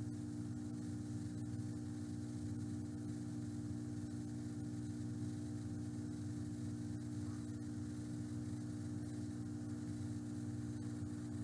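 A steady low hum made of several constant tones, with a few faint ticks now and then.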